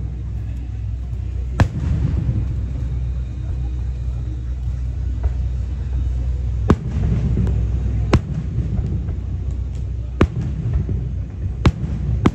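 Aerial firework shells bursting overhead: five sharp bangs, irregularly spaced, over a steady low rumble from the display.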